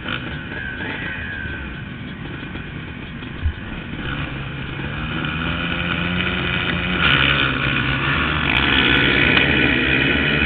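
Several motocross bikes running at the starting gate, the engine noise growing louder and denser from about seven seconds in as bikes rev and pull away. A single thump about three and a half seconds in.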